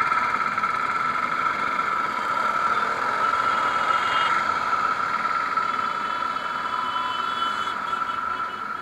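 Motorcycle engine running as the bike rolls slowly through traffic, heard from an on-board camera, with a steady high-pitched whine over it.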